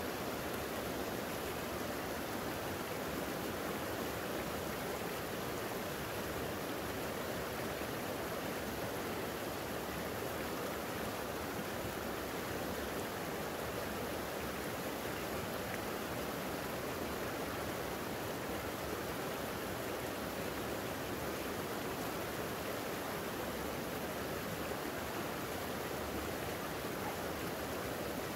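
A creek flowing: an even, unbroken rush of running water that holds steady throughout.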